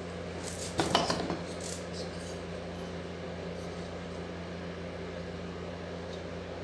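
A brief scrape of parts and packaging being handled about a second in, over a steady low electrical hum.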